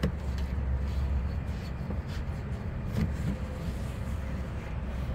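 A Cadillac's exhaust tip and tailpipe being handled by gloved hands, giving a few sharp metallic knocks (one at the start, then two about two and three seconds in) over a steady low rumble.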